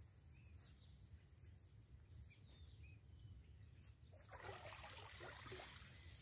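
Water splashing and pouring out of a plastic-bottle fish trap as it is hauled up out of the water by its rope, starting about four seconds in. Before that, only a few faint bird chirps.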